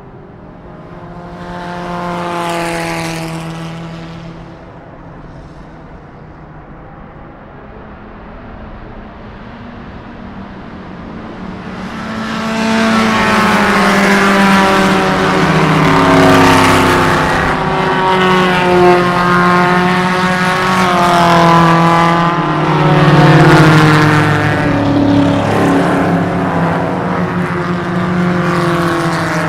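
Race car engines at a circuit. One car goes by a couple of seconds in. From about twelve seconds, loud engines from several cars run on together, their pitch rising and falling.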